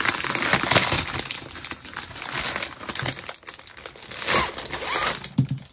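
Clear plastic film wrap crinkling and rustling as hands pull it open around a boxed canvas kit. The rustling is loudest in the first second or so and swells again about four to five seconds in.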